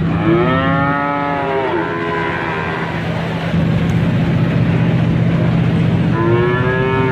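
Calves mooing: a long, arching moo near the start and another near the end, over a steady low hum.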